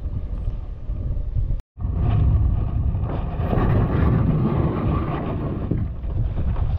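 Wind buffeting the microphone, as a loud low rumbling noise. About a second and a half in the sound drops out for a moment at an edit, then returns louder.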